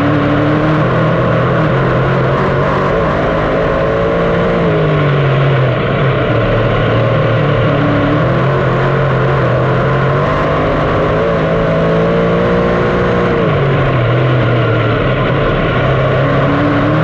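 358 small-block V8 dirt modified race engine running hard at speed, its pitch climbing and then dropping off again in a repeating cycle every several seconds, over a steady roar.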